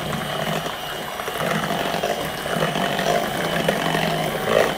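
Electric hand mixer running steadily, its beaters whisking raw eggs, milk and maple syrup in a stainless steel bowl.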